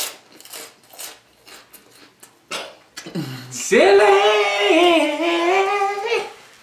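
Scattered crunchy clicks of chewing, then a high voice sings a long, wavering 'silly' lasting about two and a half seconds, starting a little past halfway and much louder than the chewing.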